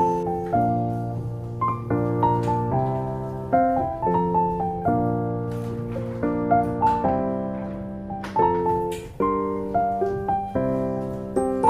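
Background piano music: a gentle melody of single notes and chords, each struck and left to fade.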